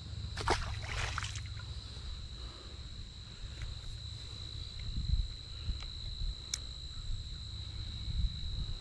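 Insects calling in a steady, unbroken high-pitched drone over a low rumble on the microphone, with a few faint clicks and knocks.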